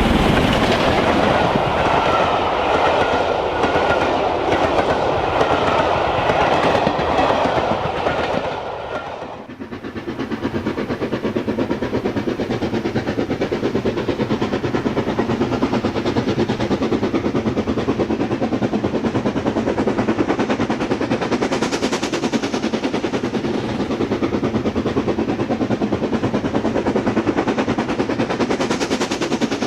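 OO gauge model steam locomotive with its train running on the layout's track, giving a rapid, even clatter. About nine seconds in, the sound dips briefly and then carries on as a steadier, finer clatter.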